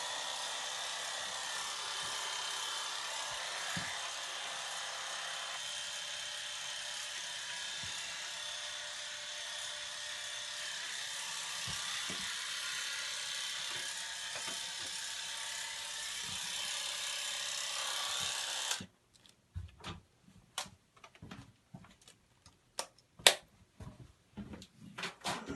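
Electric hair clippers running with a steady buzz, then switched off abruptly about three-quarters of the way through. Scattered clicks and knocks follow.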